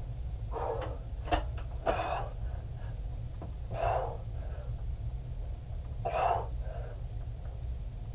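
A man's forceful breaths, a short hard exhale about every two seconds, typical of someone pushing through repetitions of a heavy press. Two sharp clicks come about a second in, over a steady low hum.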